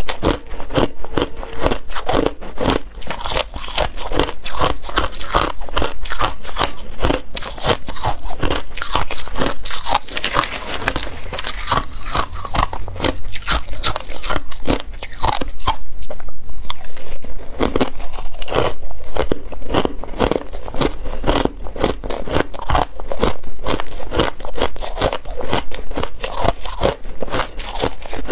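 Crushed ice being bitten and chewed close to a clip-on microphone: loud, continuous crunching made of many sharp cracks a second.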